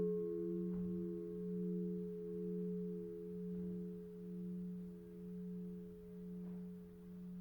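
Church bell's hum dying away after a strike: a few low tones ring on and pulse in slow waves about once a second while growing fainter.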